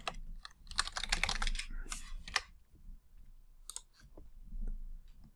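Typing on a computer keyboard: a quick run of keystrokes through the first two and a half seconds, then a few single clicks.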